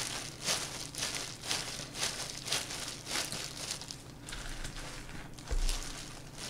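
Disposable plastic gloves crinkling as hands squeeze and pack rice into a rice ball, about two soft rustles a second. There is a short, low knock about five and a half seconds in.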